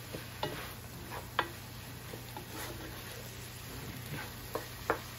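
Wooden spoon stirring pork liver, garlic and chopped vegetables sautéing in a metal roaster pot: a few sharp clicks of the spoon against the pot over a faint steady sizzle.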